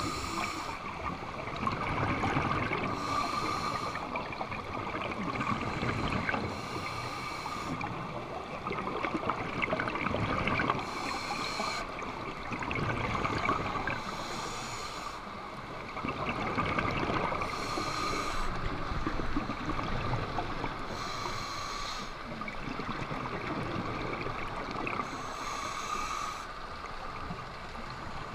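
Scuba regulator breathing, heard underwater through a GoPro's housing: a short hiss with each breath and a rumbling, bubbling exhaust between them, repeating every few seconds.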